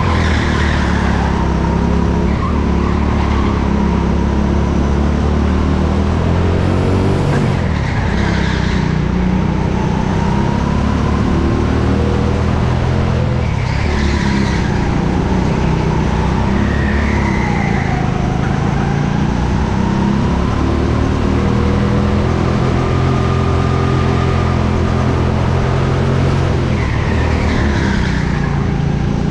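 Go-kart engine running hard while racing, its pitch rising and falling with the throttle, with tyres squealing briefly several times in the corners.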